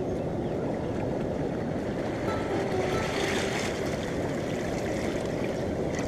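Ocean surf on a rocky shore: a steady rush of water, with a wave surging and hissing about halfway through.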